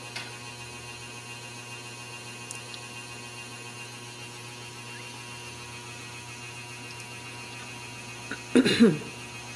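Steady electrical mains hum. About eight and a half seconds in, a short voice sound falling in pitch cuts in loudly for about half a second.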